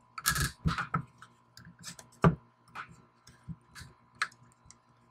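A plastic zip tie being threaded through a wooden chassis and worked tight around a hobby servo: irregular small clicks and short scrapes of plastic on wood. The loudest moments are a scrape just after the start and a sharp click a little over two seconds in.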